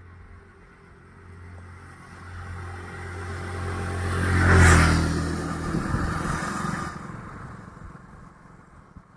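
A motor vehicle drives past with its engine running, growing louder, loudest about halfway through, then fading away.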